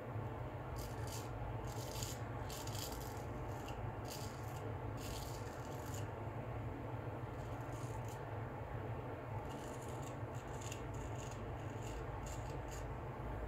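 Filarmonica 15/16 full-hollow straight razor cutting through lathered beard stubble: a crisp crackling rasp in short strokes, the 'singing' of a full-hollow blade. Two runs of strokes with a pause of a few seconds in the middle.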